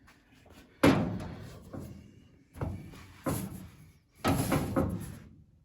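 Four heavy clanks of sheet-metal body panels being shifted and set in place, each ringing out briefly. The first, about a second in, is the loudest.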